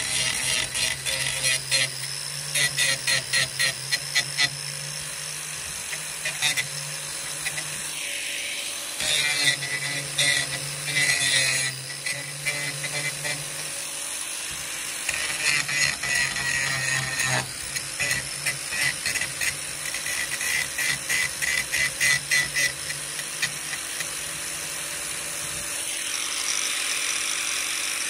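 Angle grinder running against the steel seam of a narrowboat roof, grinding it down flush. The steady motor hum is overlaid by a high-pitched grinding that comes and goes in runs of quick pulses as the disc bites, with brief lulls.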